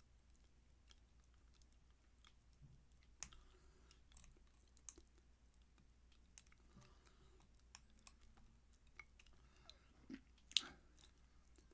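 Faint, scattered clicks and scrapes of lock picks working the pins of a small Eagle padlock, with a sharper click near the end.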